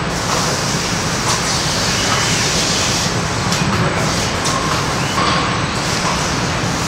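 Steady industrial noise of a car-body paint booth where painting robots are working, with an even rush of air throughout and a few brief faint whines over it.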